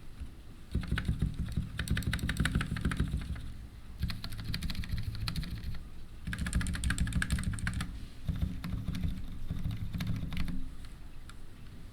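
Typing in fast runs on a Ducky One 2 Mini mechanical keyboard with unlubed Cherry MX Silent switches and PBT keycaps: a steady patter of muted keystrokes with short breaks, stopping about a second before the end.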